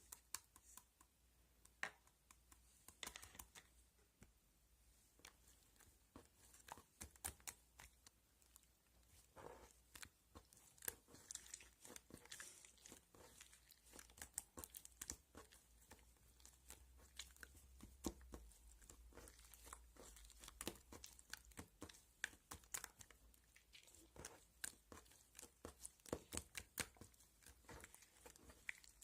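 Faint, irregular clicks and taps mixed with crinkling and rustling, like small objects or paper being handled close by.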